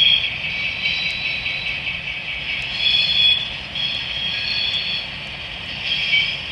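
Curve squeal sound effect from the onboard sound decoder of a ScaleTrains HO scale Union Pacific GTEL 8500 hp "Big Blow" turbine model, played through its speaker as it rounds a curve: high wheel-flange squeals come and go several times over the locomotive's steady running sound.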